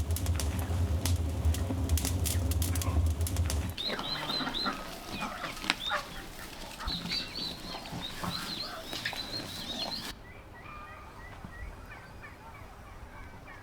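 A machine running with a deep steady hum and rattling clicks, cut off abruptly after about four seconds. Farmyard fowl, chickens and geese then call and chirp, and after another abrupt cut about ten seconds in, softer repeated bird chirps continue.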